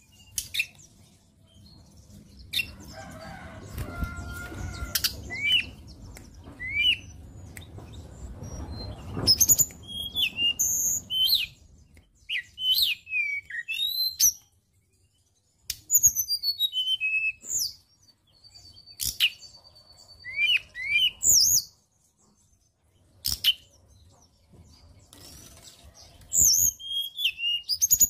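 Hill blue flycatcher singing in groups of quick, high whistled notes, some sliding up and some down, with short pauses between phrases. Low rustling and sharp clicks from the bird moving in its cage fill the first part.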